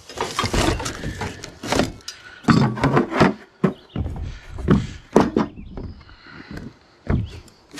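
Packed parts being handled in a shipping crate: cardboard and plastic wrap rustling, with irregular knocks and thuds as heavy pieces are shifted.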